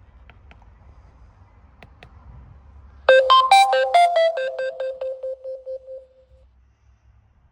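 A few faint button clicks, then the Zello PoC radio's electronic jingle as it reboots: a quick run of about a dozen pulsing beeps that steps down in pitch and dies away over about three seconds.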